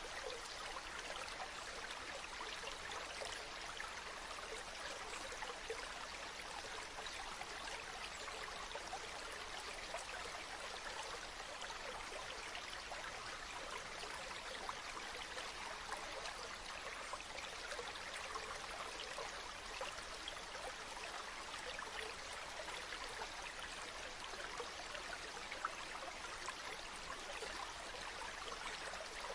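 Mountain stream running steadily over rocks, a continuous babbling rush of water with many small splashes and trickles.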